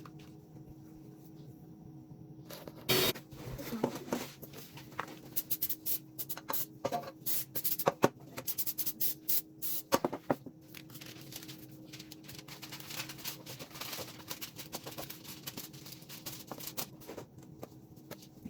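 Kitchen utensils and bowls being handled during batter preparation: a busy run of clicks, taps and scrapes for about eight seconds, starting about three seconds in, then quieter scraping and rubbing, over a steady low hum.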